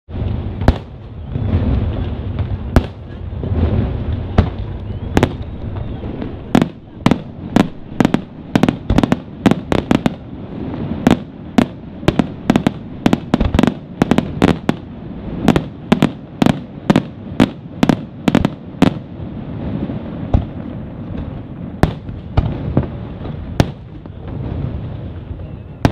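Aerial fireworks display: shells bursting with sharp bangs over a continuous low rumble. A few bangs come at first, then a rapid volley of about three a second from about six seconds in, thinning out after about nineteen seconds.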